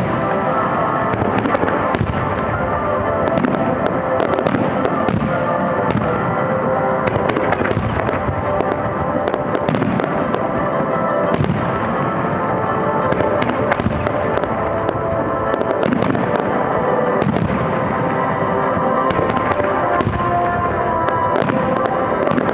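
Aerial firework shells bursting in quick succession, each burst trailing off in echo, with show music playing throughout.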